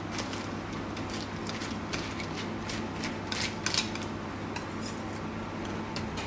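A plastic piping bag being handled and folded on a cutting board while a small knife scrapes filling into it: short crinkles and clicks, with a few louder ones a little past halfway, over a steady low hum.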